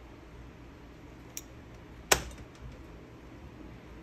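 Wire strippers working a lamp cord: one sharp snap about two seconds in, with a fainter click just before it and a few small ticks after.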